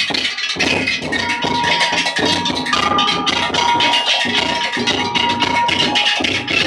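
Loud music with a busy percussive beat and a few held melody notes over it.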